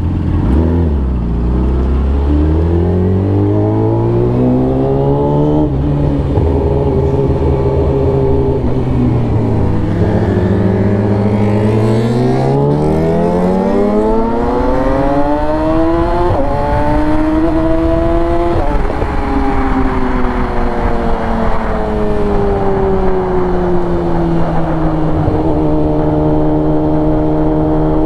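Yamaha R6 inline-four sport bike engine under way, heard from the bike itself. Its revs climb and drop back at each upshift, at about five, sixteen and eighteen seconds in. After that the engine speed eases down gradually and holds steady near the end.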